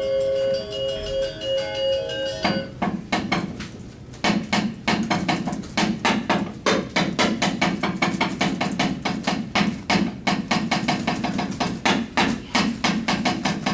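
Sustained ringing metallophone notes for the first couple of seconds, then rapid, uneven wooden knocking, several strikes a second: the puppeteer's knocker rapping on the puppet box to accompany a shadow puppet's movements.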